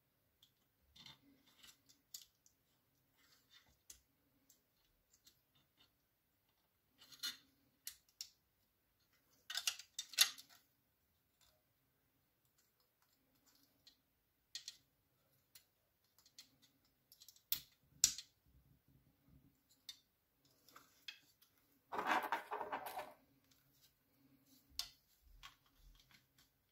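Scattered light plastic clicks, taps and scrapes from hands handling a car's third brake light LED strip and its clear plastic housing, with one longer, louder scraping rustle of about a second late on.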